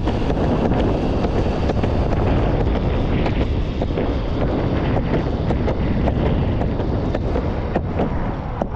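Wind buffeting the microphone over the rumble of electric skateboard wheels rolling on pavement, with scattered sharp clicks.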